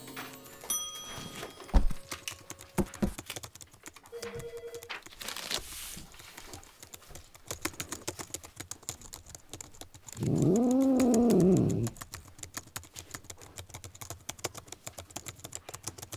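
A cat gives one long meow about ten seconds in, rising and then falling in pitch; it is the loudest sound. Behind it runs a light, rapid clicking of computer keyboard typing, with a sharp knock about two seconds in.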